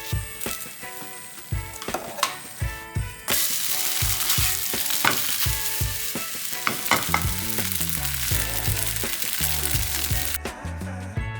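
Food sizzling as it fries in hot oil in a pan, growing much louder about three seconds in and cutting off suddenly near the end. Background music with a steady beat plays throughout.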